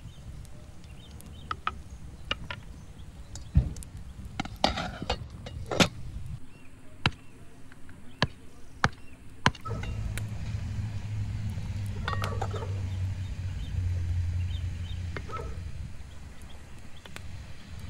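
A knife blade chopping into a wooden stick: a string of sharp, uneven wooden knocks over the first half. Then a steady low rumble, with a few short chirps.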